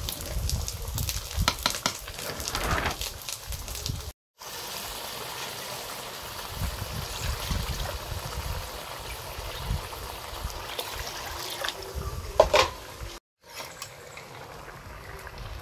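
Khichuri of rice, dal and vegetables cooking in a large aluminium pot: a metal spatula scraping and stirring for the first few seconds, then a steady bubbling simmer, with one sharp knock about twelve and a half seconds in.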